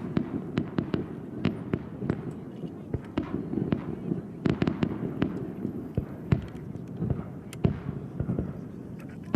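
Fireworks display: aerial shells bursting in rapid, irregular succession, sharp bangs over a continuous low rumble of booms.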